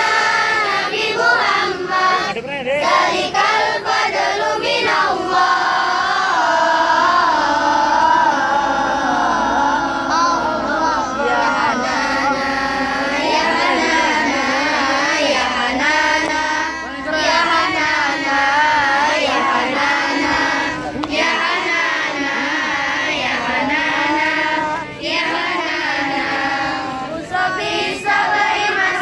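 A group of children singing together in unison, their voices carrying a melody without pause.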